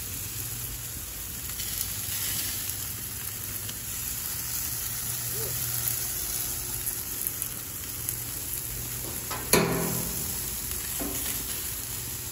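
Chicken drumsticks sizzling on the grates of a gas grill, a steady hiss, with one sharp knock a little under ten seconds in.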